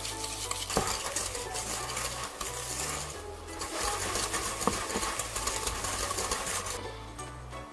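Whisk stirring a gritty mix of sugar and melted butter in a glass bowl: rapid, steady scraping and ticking of the wires against the glass.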